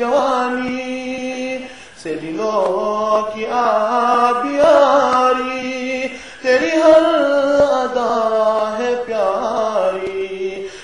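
A man chanting an Urdu naat, with no instruments, in long melodic phrases of held and gliding notes. He pauses briefly for breath about two seconds in and again near six seconds.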